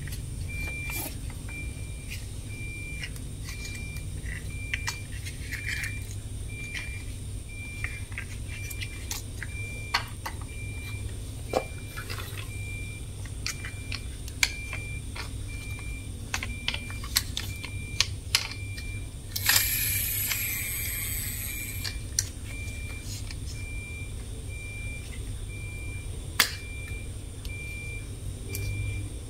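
A high electronic beep repeating steadily about twice a second, over a low hum. Light clicks and knocks of plastic toy trucks being handled come through, with a short, louder rattling hiss about twenty seconds in.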